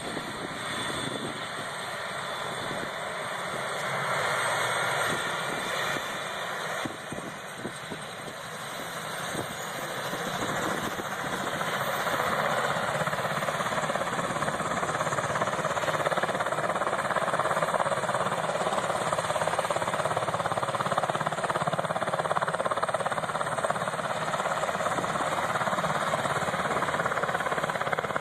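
UH-60 Black Hawk helicopter running on the ground: twin turboshaft engines and main rotor, with a fast pulsing rotor beat. It grows louder about ten seconds in, then holds steady.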